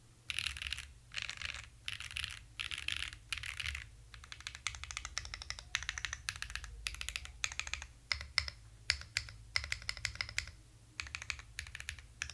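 Typing on the Enso-E split ergonomic mechanical keyboard with MX-style switches in a bottom isolation mount on silicone tabs: fast clacking keystrokes in quick runs with short pauses. There are four dense rolls of keystrokes over the first few seconds, then crisper separate clicks.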